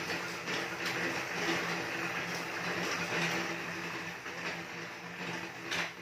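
Home elliptical cross-trainer being pedalled: a steady mechanical whir from the flywheel with occasional short knocks as it turns.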